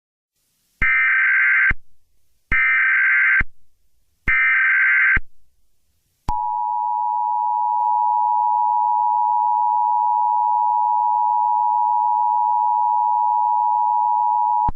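Emergency Alert System tones: three short bursts of screeching digital header data, then the steady two-tone attention signal held for about eight seconds. Together they mark the start of an emergency alert broadcast.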